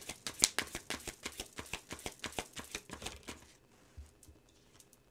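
Deck of tarot cards shuffled by hand: a quick run of card clicks that stops about three and a half seconds in.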